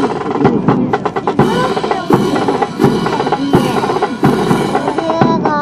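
Band music driven by snare and bass drums: quick, rapid drum strokes over sustained pitched instrument notes.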